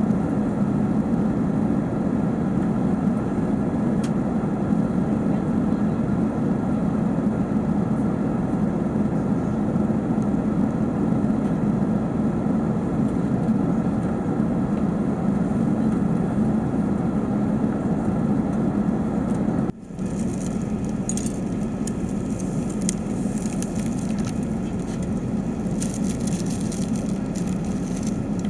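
Steady cabin noise of an Airbus A380 in flight, the engines and airflow making a low, even roar inside the economy cabin. After a brief break about two-thirds through, scratchy rustling and crackling sounds up close join the roar.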